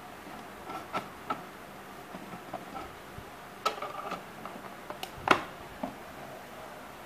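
Scattered light clicks and taps of hands handling the plastic shade of an IKEA LAMPAN table lamp, with a louder knock about five seconds in.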